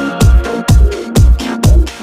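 Electronic music with a heavy kick drum on every beat, about two beats a second, over sustained synth chords.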